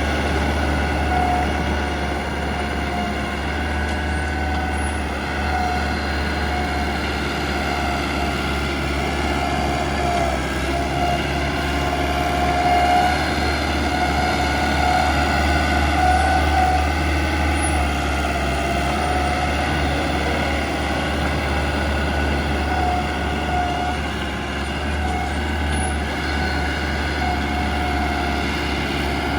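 Shantui bulldozer's diesel engine running steadily under working load, with a wavering high whine on top that rises and falls throughout.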